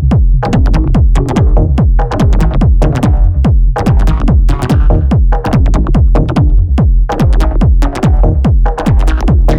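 Electronic techno track: a heavy, dense bass line under a fast, relentless run of punchy hits, each one sliding down in pitch.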